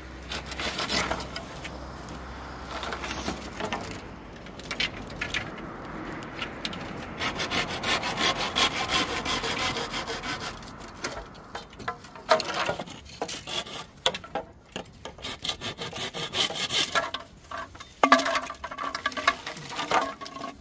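Hand pruning saw cutting through bamboo stalks in quick back-and-forth rasping strokes. Near the end the sawing comes in shorter runs, broken by sharp knocks of bamboo.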